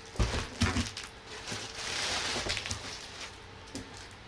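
Two dull thumps within the first second as a heavy amplifier is set down on a cardboard box, then its plastic wrapping bag crinkling and rustling as it is handled, fading out after about three seconds.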